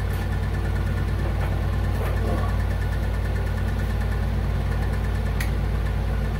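Steady low engine-like hum, like an idling motor, running evenly throughout, with a few light clicks from handling.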